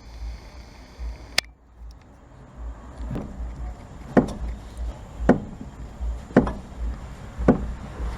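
Fiat Uno manual rack-and-pinion steering box knocking ('toc, toc') as the steering is worked back and forth: sharp, even knocks about once a second after an early single click. The knock comes from the rack shaft itself, not the axial tie-rod joint, which the owner takes for wear in the rack or its bushing.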